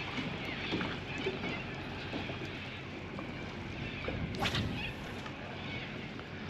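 Wind buffeting the microphone as a steady, low rumbling noise, with a few small clicks and one sharper click about four and a half seconds in.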